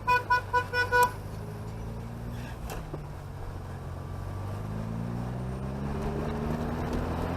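Chevrolet Chevette's four-cylinder engine running as the car drives, its pitch rising steadily over the last few seconds as it accelerates. About five quick high beeps sound in the first second.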